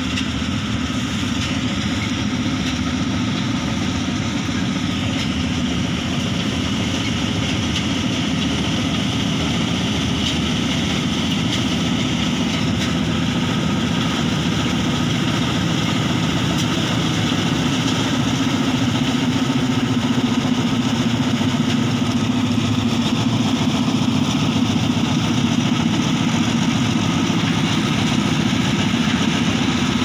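Bharat combine harvester running steadily while it cuts rice paddy: diesel engine plus threshing machinery. It grows a little louder over the last third as the machine comes closer.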